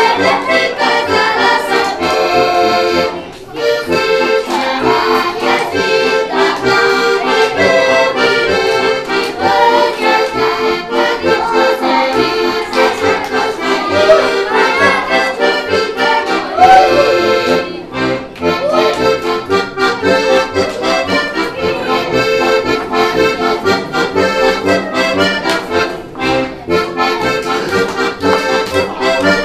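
Button accordion playing a lively folk tune, with a children's choir singing along in the first part. The music breaks off briefly about three seconds in and again around eighteen seconds.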